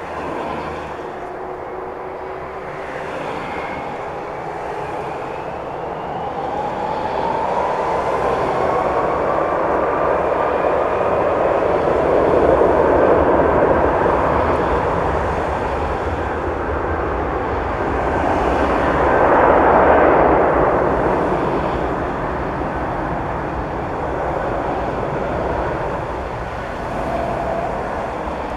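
Jet airliner's engines during takeoff: a steady roar that swells twice, about twelve and twenty seconds in, with thin whining tones gliding upward.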